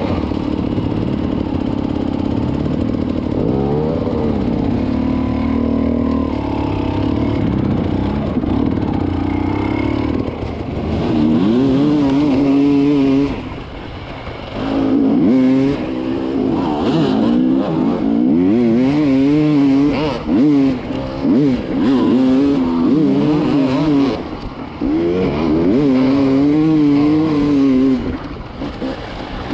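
Enduro dirt bike engines running, the nearest one revving up and down under changing throttle so that its pitch keeps rising and falling. The drone is steadier during the first ten seconds, and loudness dips briefly about halfway.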